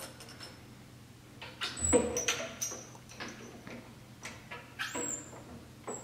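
Hand-operated welding machine being worked by hand: metal clanks and clicks from its levers and clamps, with short high squeaks, loudest about two seconds in and again around five seconds.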